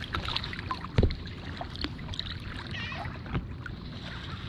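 Water lapping and trickling around a kayak's hull as it is paddled on calm water, with one sharp knock about a second in. Faint seagull calls come about three seconds in.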